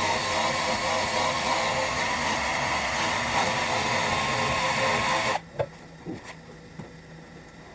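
Workpro 12-volt cordless 3-inch sander/polisher running steadily with a constant motor whine, then switched off suddenly about five seconds in. A few light clicks and taps follow.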